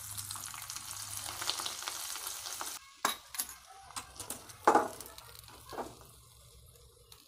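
Ghee sizzling as chopped almonds roast in it in the halwa pan; the hiss cuts off suddenly about three seconds in. After that, a wooden spatula scrapes and stirs through the thick jaggery halwa in short strokes.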